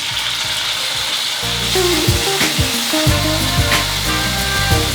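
Meat frying in hot oil in a pan: a steady sizzle.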